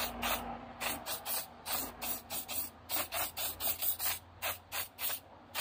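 A cloth wiped briskly back and forth over a scooter's plastic bodywork, a steady run of short hissing strokes, about four a second.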